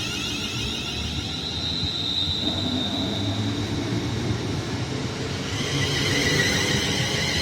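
Express train passing through a station without stopping: a steady rumble of wheels on rail with a high ringing whine, growing louder about six seconds in.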